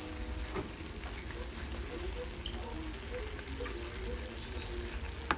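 Diced steak and onion frying in butter in a skillet, a faint steady sizzle.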